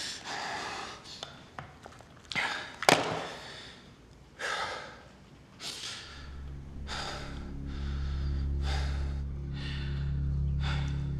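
A man's heavy, shaky breathing, a breath about every second, with one sharp click about three seconds in. About halfway through, a low steady music drone comes in beneath the breaths.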